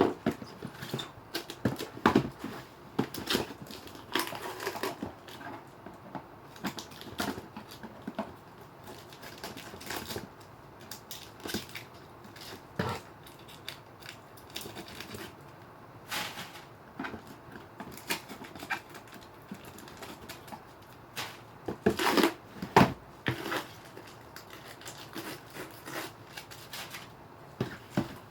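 A pair of shoes being unboxed: the cardboard shoebox and its packaging are handled, crinkling and rustling in irregular bursts with clicks and knocks. The loudest burst of crinkling comes a little past two-thirds of the way through.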